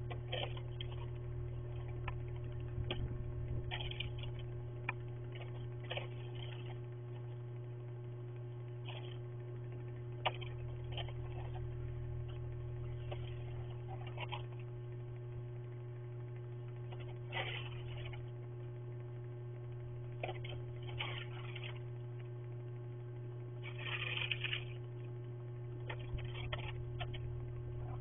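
Steady electrical hum picked up by a security camera's microphone, with now and then a brief scuffing noise.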